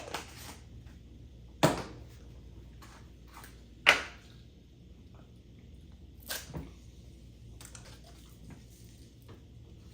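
Toy capsule packs being dropped into a container of water: three sharp plops, the loudest about four seconds in, with lighter taps between.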